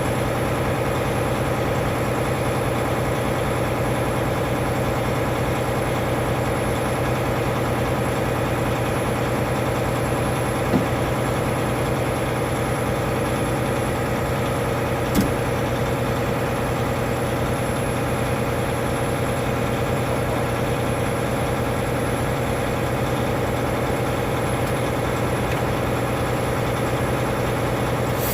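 Semi-truck diesel engine idling steadily, with two brief clicks partway through.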